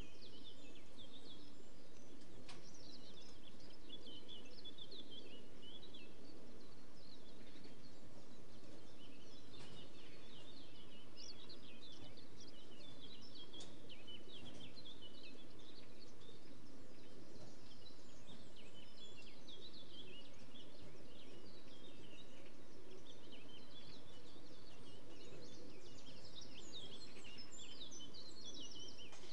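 Wild songbirds chirping and singing throughout, over a steady low murmur.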